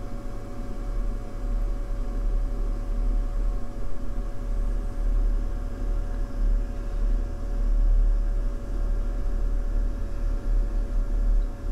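Amplitrex AT1000 tube tester running its automatic test on an ECL82's pentode section. It makes a steady mechanical hum: one constant mid-pitched tone over a low rumble that wavers in strength.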